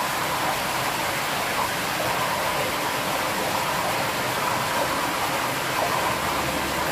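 Vacuum fryer's vacuum system running, a steady, even rushing noise as the sealed chamber is pumped down.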